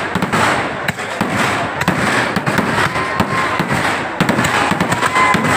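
Aerial fireworks shells bursting overhead, a dense crackle of many sharp pops going on without a break.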